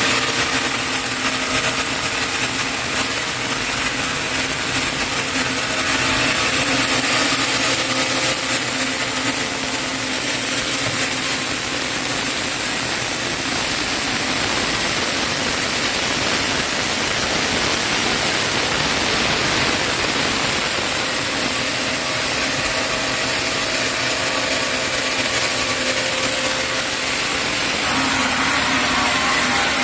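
Sawmill saw cutting lengthwise through a chinaberry (sendan) log, a continuous, steady noise of blade in wood over the hum of the machine.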